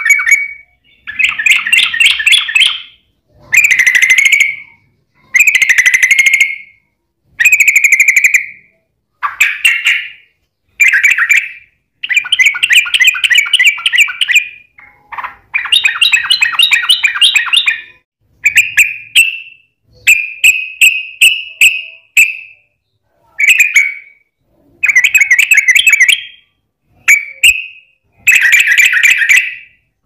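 Yellow-vented bulbul (trucukan) singing its long rapid song ('ropel panjang'): loud bursts of quick, bubbling chattering notes, each phrase a second or two long, repeated over and over with short pauses.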